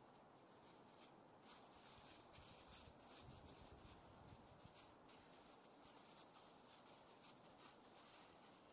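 Near silence: faint scratchy rustling close to the microphone over a light steady hiss.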